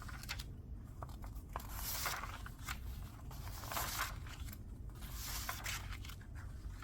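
Sheets of craft paper rustling and sliding against each other as they are handled, in several soft swishes a second or two apart, with a few light clicks.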